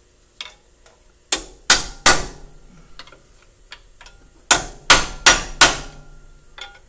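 Hammer tapping a steel bar laid across the top of a truck air disc brake caliper, seating the new pad-retainer hardware. Three sharp metallic taps, a pause of about two seconds, then four more, each ringing briefly.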